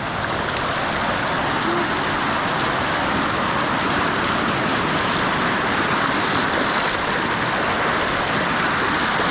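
Steady rush of water pouring down the smooth rock face of Bridal Veil Falls, a sliding-rock waterfall.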